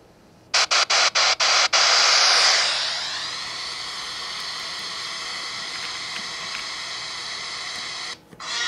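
Smartphone FM radio receiver hissing with static. The hiss cuts in and out a few times at first, then settles to a steadier, quieter hiss with faint tones in it. It drops out briefly near the end, then comes back with clearer steady tones as the Raspberry Pi's FM transmission comes through.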